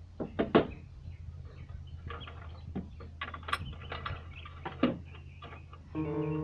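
Scattered clicks and knocks of metal hardware being handled and fitted on a wooden frame, the loudest about half a second in and near five seconds, over a low steady hum. Guitar music comes in near the end.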